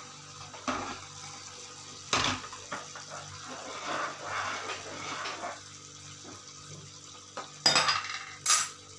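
A heavy stone-coated pot set down on a gas stove grate with a knock. Then a steel spoon stirs and scrapes through thick rice kheer in the pot, and near the end the spoon clinks sharply against the pot twice.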